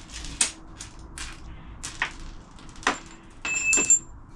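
Metal objects being moved and set down: a series of sharp clanks, with one near the end ringing briefly.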